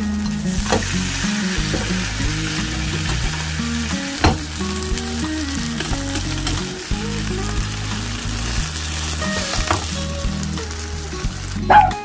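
A squid and vegetable pancake frying in a pan with a steady sizzle as it browns. A few sharp clicks of the metal spatula come about four seconds in and again near the end.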